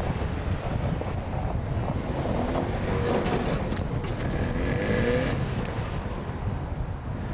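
Opel Frontera SUV engine revving off-road, its pitch climbing a couple of times in the middle of the stretch, over a steady low wind rumble on the microphone.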